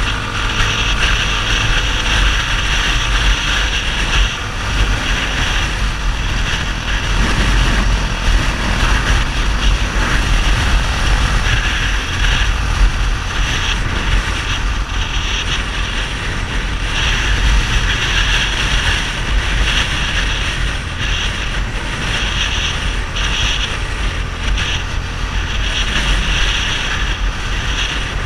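Yamaha XTZ 250 Ténéré's single-cylinder four-stroke engine running through a Roncar 2WAY aftermarket exhaust, steady and loud under a continuous low rumble, with its pitch shifting slightly in the first couple of seconds.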